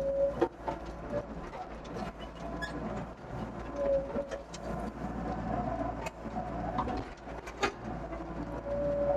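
Doosan DX55 mini excavator at work: the diesel engine runs steadily, a hydraulic whine rises and drops away in short stretches as the controls are worked, and sharp knocks and clanks from the bucket and arm come now and then.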